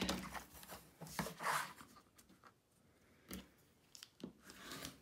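Fabric and a quilting ruler being shifted and rustled on a cutting mat, a few light clicks, then a rotary cutter scraping and crunching through the layers of fabric and stabilizer near the end.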